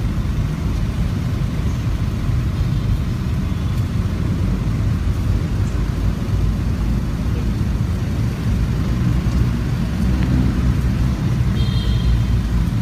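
Road traffic: cars running past on a city street, a steady low rumble, with a brief high-pitched tone near the end.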